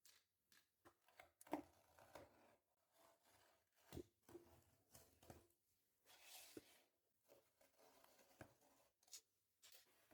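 Quiet handling of watch packaging: scattered light clicks and taps, with a soft rustle of cardboard or plastic about six seconds in.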